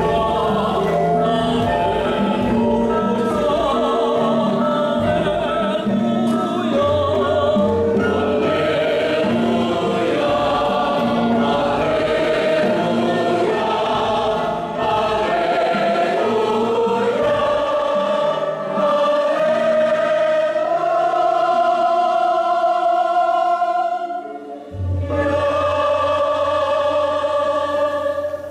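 Church choir singing a hymn in long held notes over low held bass notes. There is a short break about 24 seconds in, then a final phrase that fades out near the end.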